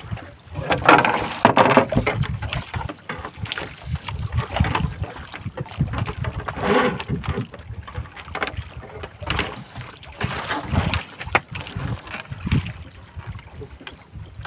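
Wind on the microphone and sea water slapping against the hull of a small fishing boat, in uneven gusts, with a few sharp knocks from gear being handled aboard.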